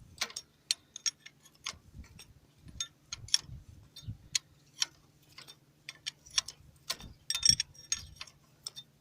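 Irregular metallic clicks and taps of hand tools working on machine parts, a spanner turning and knocking against metal, with a quick cluster of clinks near the end over a faint steady hum.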